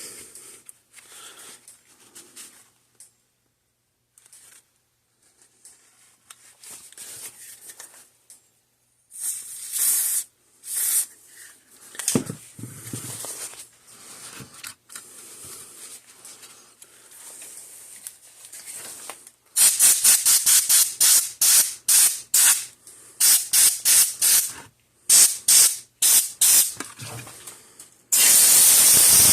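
Aerosol spray can hissing onto a circuit board to clean corrosion off it: a long spray about nine seconds in, a run of short quick bursts from about twenty seconds, and a steady spray near the end.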